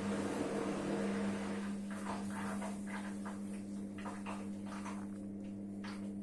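Hotpoint Ariston ARSL 105 washing machine running: a steady low electric hum, with a string of short swishing and clicking sounds over it from about two seconds in.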